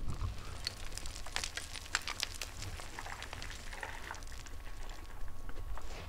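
Outdoor ambience: a low wind rumble with a scatter of small sharp clicks and ticks, thickest in the first half.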